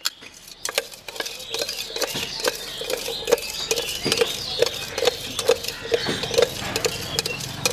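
Chopped guava pieces tossed and mixed with masala in a stainless-steel tin: a steady rhythm of knocks against the metal, about two a second, each with a short metallic ring, among smaller clatters.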